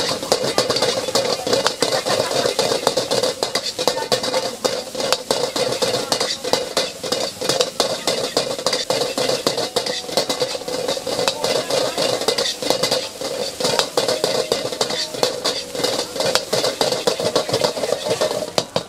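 Metal spatula clattering and scraping rapidly against a wok as fried rice is stir-fried, over a steady sizzle.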